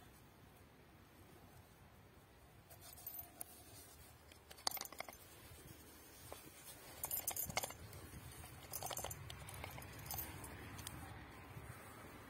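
Faint handling sounds of a felt-covered soldier's canteen: its leather strap being pulled through and buckled, then the canteen and its cup lifted and turned in the hands, with scattered small clicks and rubs, the sharpest about five seconds in and a cluster a couple of seconds later.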